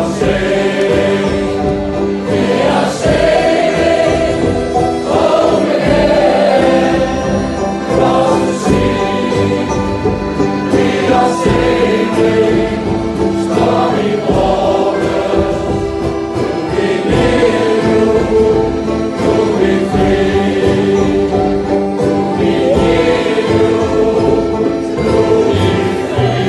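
Shanty choir singing a sea shanty in harmony, accompanied by accordions holding sustained chords.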